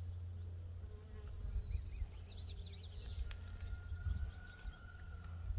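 Mason bees buzzing as they fly about the nest holes, the hum swelling and fading as they pass close. A bird chirps a quick series about two seconds in.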